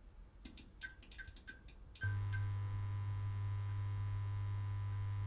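A few faint clicks, then about two seconds in a steady electrical hum switches on abruptly and holds.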